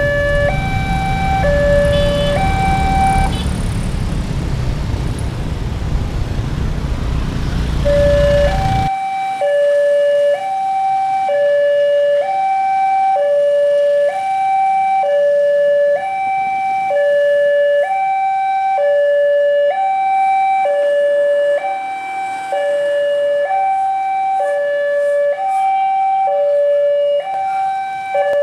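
Electronic level-crossing warning alarm, two tones alternating low and high about once a second, steady and unbroken. For the first nine seconds the rumble of a passing train lies under it, then cuts off suddenly.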